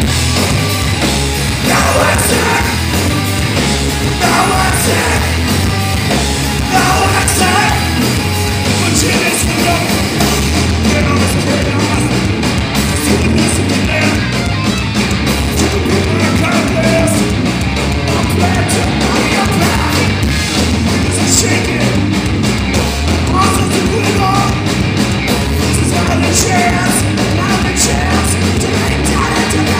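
A rock band playing live and loud: electric guitars and drums with a singer's vocals over them, without a break.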